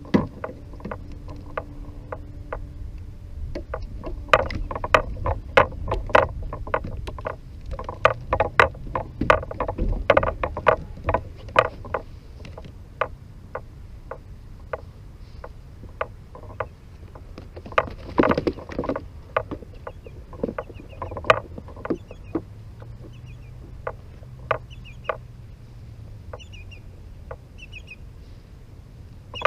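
Irregular clicks and knocks of fishing gear being handled aboard a kayak, over a steady low rumble of wind and water. The clicks come in clusters, thickest in the first half and again about two-thirds of the way through, with a few faint bird chirps near the end.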